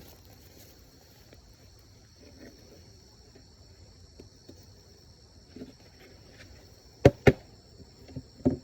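Wooden beehive boxes knocking together: two sharp knocks about seven seconds in and another near the end, as the honey super is set onto the hive. A steady high insect trill runs underneath.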